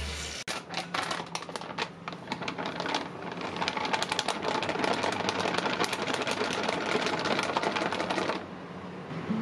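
Pancake mix pouring from its plastic packet into a bowl: a dense, rapid crackle of packet and pouring powder that stops sharply about a second before the end.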